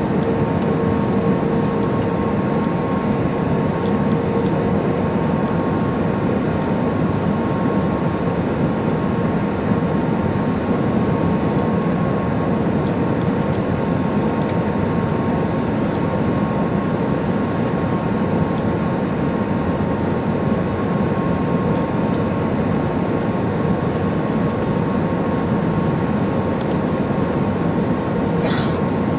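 Steady cabin noise inside an Airbus A320-214 with CFM56-5B engines: an even engine and airflow hum with thin steady whines running through it. A short faint high sound comes near the end.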